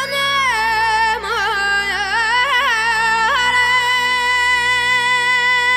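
Background music: a solo voice singing a folk-style melody with quick wavering ornaments, then holding one long note from about halfway through, over a steady low drone accompaniment.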